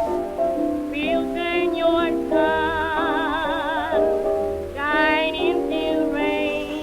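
Background music from an old jazz-blues record: a melody line over accompaniment, with a long note held with a wide vibrato about three seconds in.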